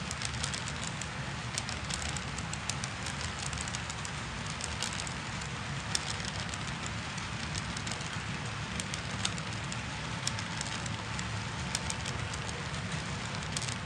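Model railway hopper cars rolling past on the track: a steady rumble of wheels on rail with many small irregular clicks and ticks.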